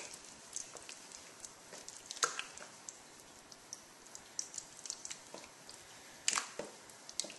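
Raw chicken pieces being worked by hand through thick tandoori marinade: faint, irregular wet squelches and small clicks, the loudest about two seconds in and again about six seconds in.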